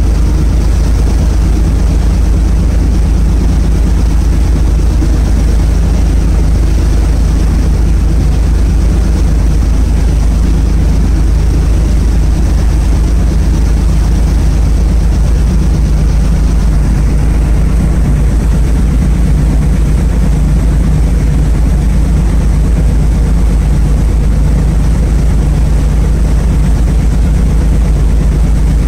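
Small passenger ferry's engine running steadily while under way, a loud, even low drone that holds constant, with a rush of water and wind over it.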